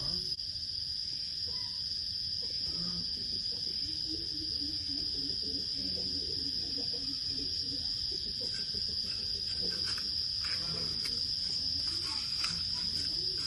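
Insects droning: one steady, unbroken high-pitched note. A few faint scrapes and taps of soil being handled come in the second half.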